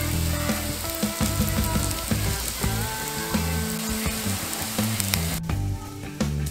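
Food frying in a pan: a steady, crackling sizzle that cuts off suddenly about five seconds in.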